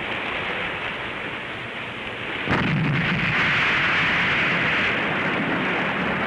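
Military weapons fire: a steady rushing noise, then a sudden loud blast about two and a half seconds in that gives way to a sustained rumbling roar.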